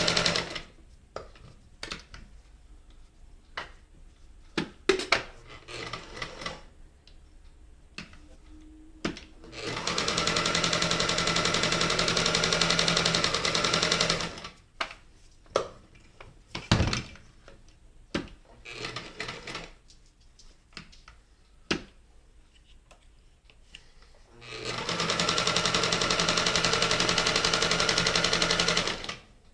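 Kenmore Model 1030 (158.10302) mechanical sewing machine running, stitching in two steady runs of about five seconds each, with scattered clicks and knocks between them.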